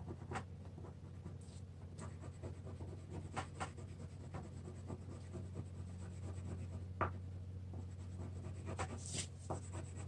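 Colouring on paper: irregular scratchy strokes of a colouring tool filling in a drawing, over a low steady hum.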